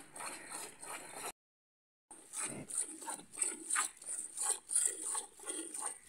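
Hand milking a cow into a steel bucket: jets of milk squirting into the pail in quick strokes, about three a second, with a break of about a second partway through.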